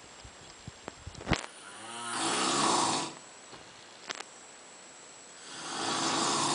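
An animal snoring: two long snores about three and a half seconds apart, each lasting about a second. A few sharp clicks come before the first snore, the loudest just before it.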